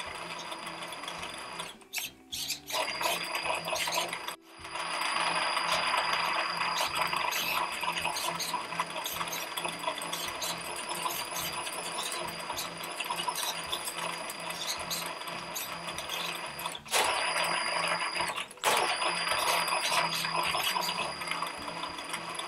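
Brushless motor and geared drivetrain of an RC robot car, driven through a VESC speed controller by gamepad throttle, running with a whirring mechanical whine over a steady high tone. It stops briefly four times, twice near the start and twice about three quarters of the way through, and then picks up again.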